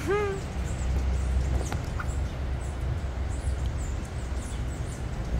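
Hummingbirds chipping: many short, high chirps repeating throughout over a steady low rumble, with a brief hummed voice at the very start.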